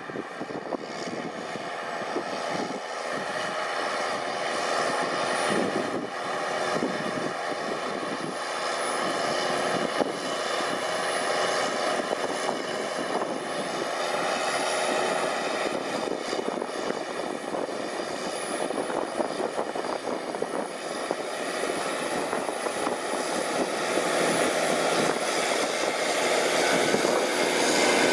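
Challenger MT765B tracked tractor's CAT C9 ACERT 8.8-litre turbocharged six-cylinder engine running steadily under ploughing load at about 1650–1700 rpm, growing louder as the tractor comes closer.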